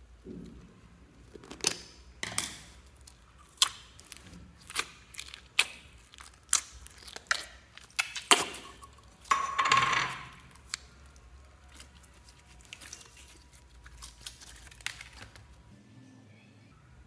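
Slime being handled and mixed: irregular sharp clicks and taps, with a longer crackling burst about ten seconds in and fainter clicks after.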